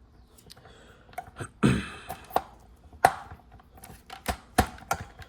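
Jeep JK shift knob being worked onto the shift lever: a series of irregular sharp clicks and knocks, the loudest about a second and a half in and again around three seconds in.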